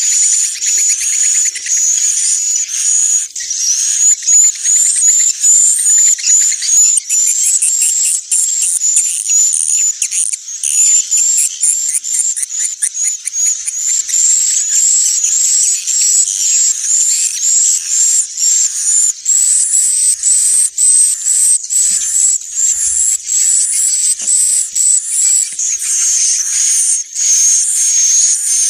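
Swiftlet calls: a dense, unbroken chorus of high chirps and quick clicking twitters. This is a swiftlet-house roosting lure recording ("suara inap"), played to draw swiftlets in to roost and nest.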